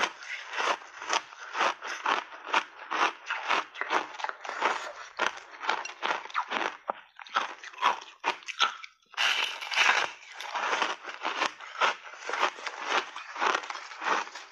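Crunchy snow-white block ice dipped in passionfruit pulp, bitten and chewed in big mouthfuls close to the microphone: a quick run of sharp crunches, about two to three a second. The crunching dies down briefly about eight seconds in, then starts again.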